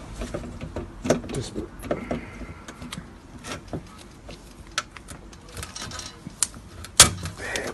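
Wire cutters clicking and snipping at the metal wire cage of a bird feeder, with light rattles as the feeder is handled; the sharpest snap comes about seven seconds in.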